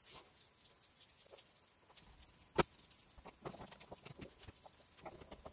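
Small clicks and light rattling from a screwdriver and the plastic air-filter housing being handled by gloved hands, with one sharper click about two and a half seconds in.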